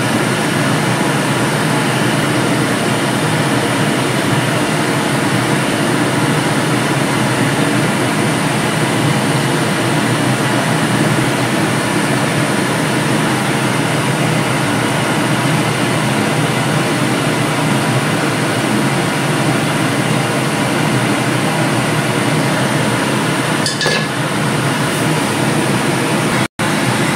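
Steady, even whooshing of a running ventilation fan, broken by a split-second dropout near the end.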